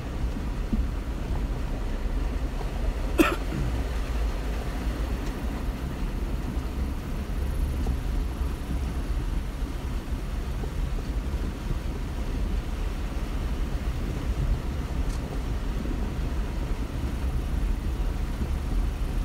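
Jeep Wrangler Unlimited (JKU) driving, heard from inside the cabin: a steady low engine and road rumble. A single sharp click about three seconds in.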